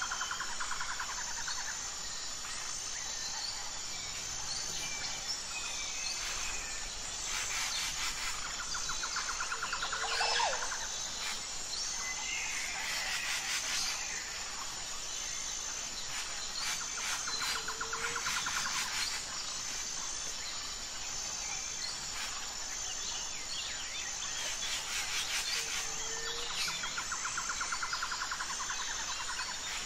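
Outdoor nature ambience: birds calling and chirping over a steady, high insect buzz. A rapid trill repeats about every eight seconds.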